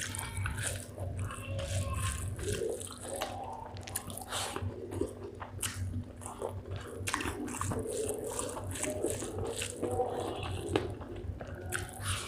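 Close-miked eating of spicy chicken gizzard with rice: wet chewing and lip-smacking, with many short clicks and squelches.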